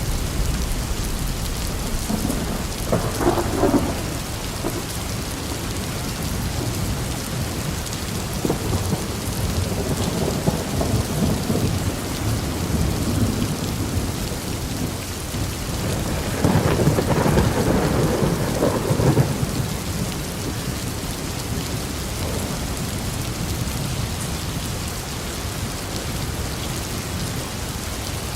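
Steady rain falling, with thunder rumbling: a short rumble about three seconds in and a longer, louder one from about sixteen to nineteen seconds.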